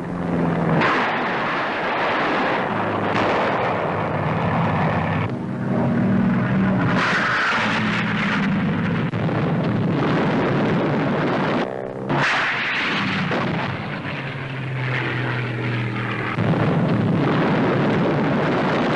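Loud roar of propeller fighter engines mixed with the rush and blasts of aircraft rockets being fired and exploding, in several stretches that change abruptly about five, twelve and sixteen seconds in.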